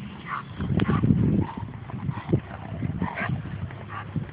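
A dog playing with a bowling ball: short dog sounds with a low rumble and knocks, the loudest rumble about half a second in lasting nearly a second, and another knock a little past the middle.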